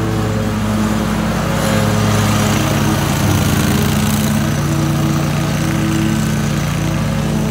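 Zero-turn riding mower's engine running steadily while it tows a spike aerator drum over the lawn; the engine note wavers briefly about three seconds in.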